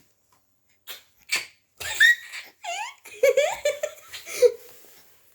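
Baby laughing: a couple of breathy gasps, then high squeals and a quick run of short giggling pulses.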